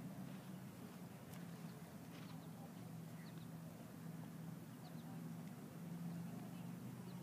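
Faint outdoor ambience: a steady low hum with a few short, high bird chirps scattered through it.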